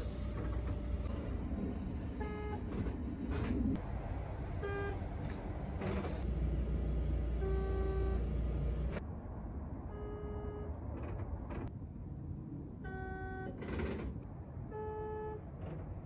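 Buzzers of several Sotetsu 20000/21000-series trains, one after another: six short buzzes two to three seconds apart, each from a different trainset and each at a slightly different pitch, over the steady hum of the stopped trains.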